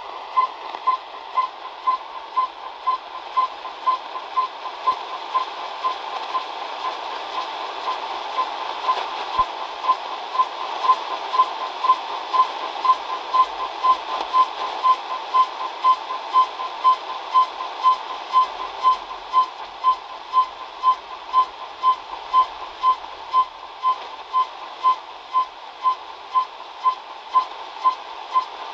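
Long-range CODAR ocean surface radar signal received on a shortwave radio at 13,495 kHz, heard through the radio's speaker. Short tone-like pulses repeat about twice a second, evenly spaced, over steady static hiss.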